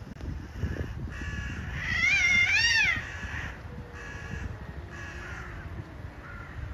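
Cats yowling in a fight standoff: one long wavering yowl that swells to its loudest about two seconds in, followed by three shorter yowls.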